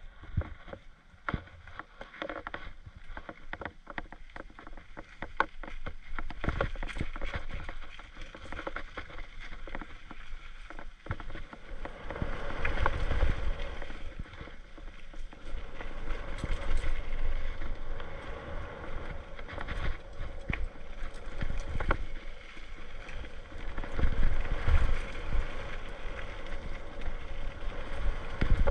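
Mountain bike descending a dirt trail: tyres on dirt with many quick knocks and rattles as the bike goes over bumps, growing louder and denser after about ten seconds, with low wind rumble on the microphone.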